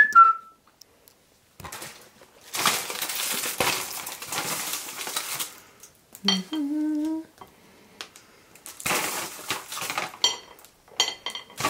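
Kitchen clatter while plating food: a sharp clink with a short ring at the start, then spells of rustling and light clinks of cutlery and crockery.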